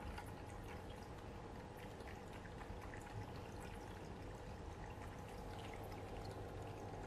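Faint, steady trickle of water from an electric pet drinking fountain, with a low steady hum under it and many small ticks and splashes as a cat laps from the bowl.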